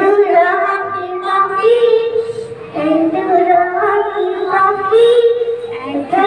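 A young child singing into a handheld microphone in long held notes that step up and down in pitch.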